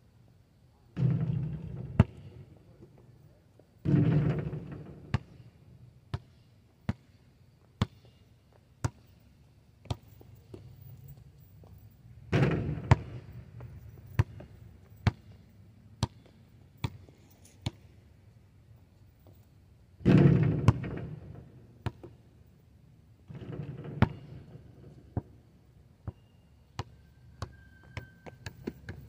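Basketball bouncing on an asphalt court in a dribble, single sharp bounces about a second apart. Five louder hits of the ball against the rim and backboard of a portable hoop each ring out for about a second.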